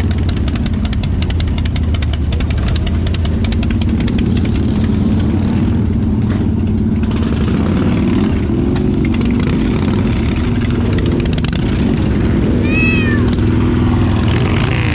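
Motorcycle engine running steadily throughout. Near the end comes one short, high, arching cry like a cat's meow.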